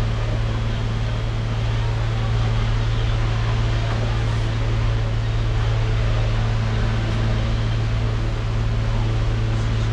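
Steady mechanical drone with a strong low hum, unchanging throughout, from a running motor or fan.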